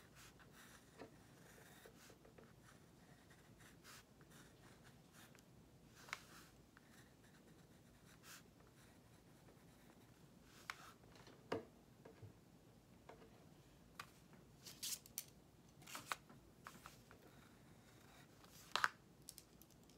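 Graphite pencil drawing on paper: faint, irregular short scratching strokes of the lead, with a few louder scrapes in the second half, the loudest near the end.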